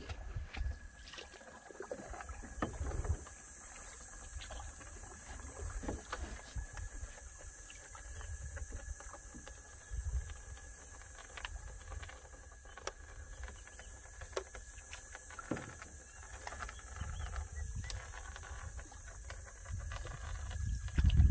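Low rumble of wind on the microphone with scattered small knocks and faint water sounds from a small boat on a lake, over a steady faint high hiss.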